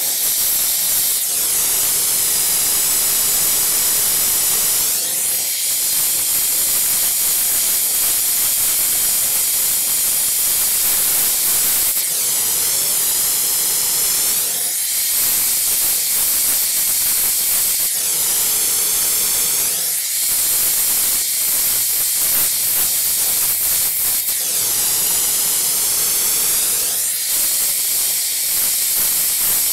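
A hand-held glassworking torch flame hisses steadily while it heats a borosilicate glass joint. The tone of the hiss sweeps up and down several times.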